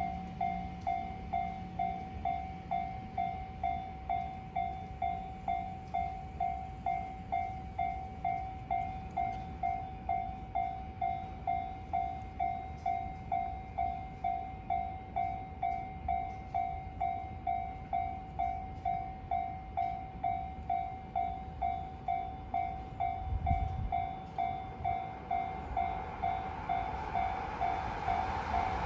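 Japanese railway level-crossing electronic warning bell ringing in a steady, even rhythm, a little under two strikes a second. Over the last few seconds the noise of an approaching train rises underneath it.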